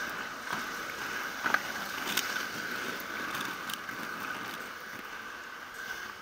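Steady rushing noise of wheels rolling over asphalt and paving, with a few short sharp clicks and knocks, the loudest about a second and a half in.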